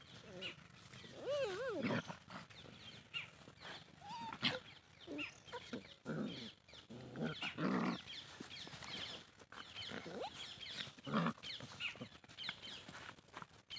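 Desi puppies play-fighting: repeated short vocal bursts, high wavering yelps and rougher growling snarls, with scuffling in loose dirt.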